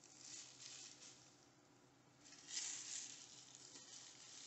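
Faint crinkling and rustling of plastic cling wrap being peeled off a wet sink basin, loudest a little past halfway.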